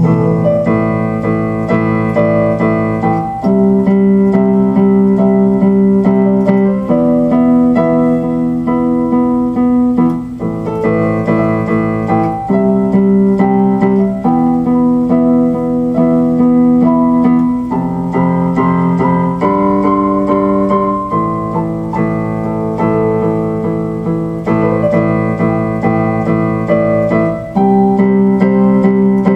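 Background music: electric piano or keyboard playing sustained chords that change every second or two.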